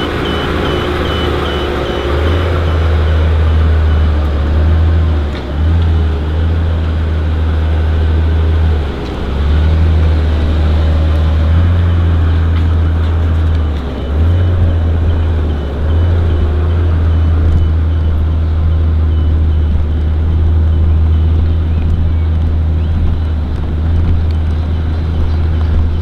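Mercedes-Benz F200 concept's 6-litre V12 running at low speed, a heavy steady low rumble that dips briefly a few times. A rapid high-pitched beeping fades out in the first two seconds.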